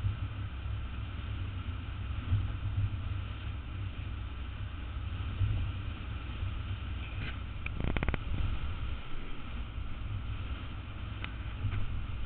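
City street ambience: a steady low rumble of traffic with wind buffeting the microphone. A brief clatter of several quick clicks comes about eight seconds in.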